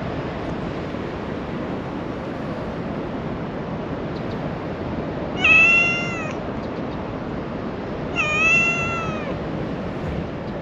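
Domestic cat meowing twice for affection, about two and a half seconds apart, each call about a second long with a pitch that rises and falls a little, the first slightly louder, over steady outdoor background noise.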